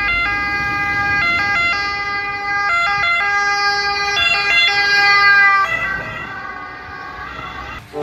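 Ambulance two-tone siren wailing, switching back and forth between a high and a low note. About six seconds in, both notes slide lower and fade as the ambulance passes by.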